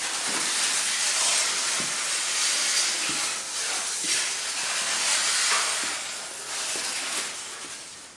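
A loud, steady hissing rush with a few small clicks in it, swelling and easing, fading away near the end.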